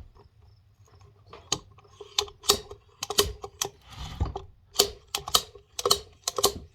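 Sharp metallic clicks and clanks, two or three a second after a quiet start, as a wrench turns a bearing puller to draw a worn gear off a tractor's final drive shaft.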